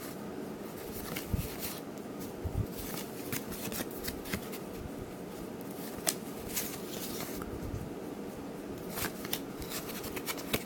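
Paper-stock cardboard baseball cards being handled and flipped through one after another: scattered soft slaps, clicks and rustles of card on card, over a steady low hum.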